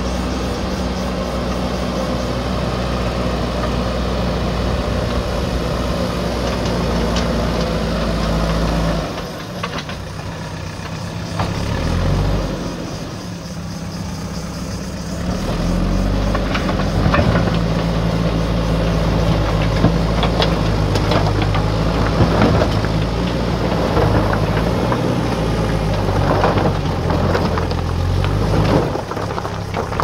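JCB 3DX backhoe loader's diesel engine running under load while the front bucket works. The engine note drops about a third of the way in. From about halfway on, stones knock and clatter against the steel bucket as it scoops into a rock pile.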